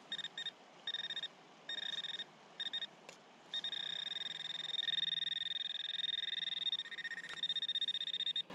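Metal detector signalling a buried metal target: a high electronic tone beeps in several short pulses, then about three and a half seconds in holds steady with a fast flutter for about five seconds.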